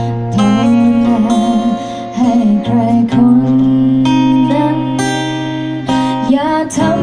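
Acoustic guitar strummed along with a woman singing into a microphone, a live cover song with a steady bass note beneath.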